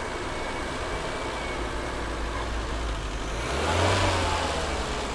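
Triumph Acclaim's Honda-built 1.3-litre four-cylinder engine with twin carburettors, running cold at a lumpy tick-over just after its first start following restoration. It grows louder for a moment about three and a half seconds in. The uneven idle is put down to the ignition timing being slightly out, probably.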